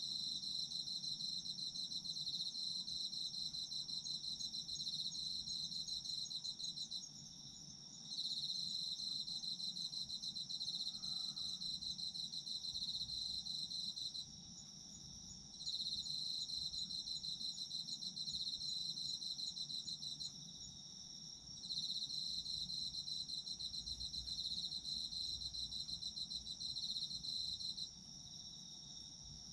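Autumn insects singing: one keeps up a steady, unbroken high-pitched trill, while another sings a fast pulsing trill in bouts of about six seconds, pausing briefly between them, four times.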